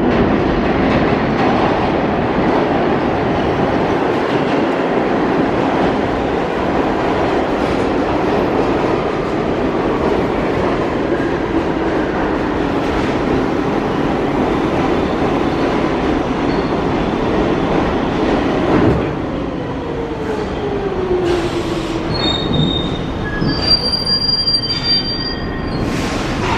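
New York City Subway 3 train of R62 cars pulling into an underground station, its wheels running loud and clattering on the rails. A falling whine comes as it slows to a stop, with brief high squeals near the end as it stands.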